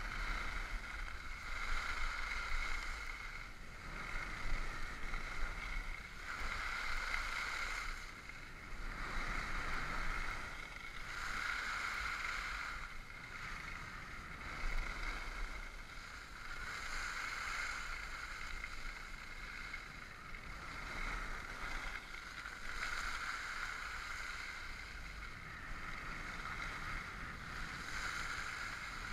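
Skis hissing and scraping over snow through a run of turns, swelling and fading every second or two, with wind rumbling on the microphone.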